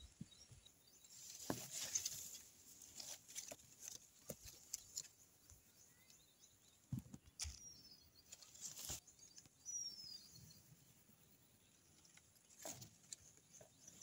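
Faint rustling of leaves and light handling knocks, with a bird's short high whistle falling in pitch heard three times in the second half.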